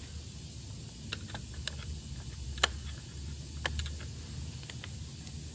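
Faint, scattered light clicks and taps of small metal parts being handled at a diesel engine's injector bores, with one sharper click about two and a half seconds in, over a low steady hum.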